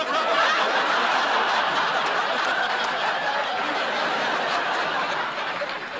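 Sitcom studio audience laughing, one long laugh that runs on without a break.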